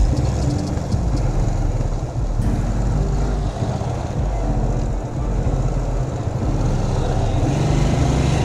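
Motorcycle engine running at low speed and slowing into stopped traffic, heard from the rider's own bike, with a steady rush of road and wind noise.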